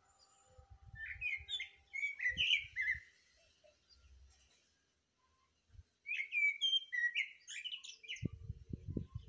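A thrush singing two phrases of clear whistled notes, each ending in high twittering. The first comes about a second in and the second about six seconds in. Low rumbling on the microphone near the end.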